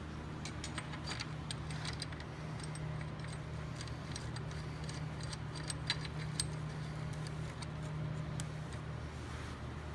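Light metallic clicks and clinks of tools and small parts being handled against a V10 engine's cylinder head and timing-chain cover, two of them louder a little after the middle, over a steady low hum.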